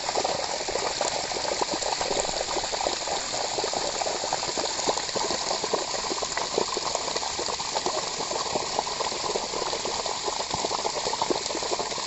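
Thick jet of water gushing from an irrigation pipe outlet and splashing into a flooded paddy field: a loud, steady rush.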